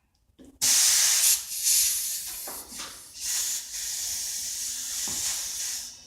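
Compressed air hissing out in a loud, high rush that starts suddenly just under a second in, eases off briefly around the middle, and cuts off near the end.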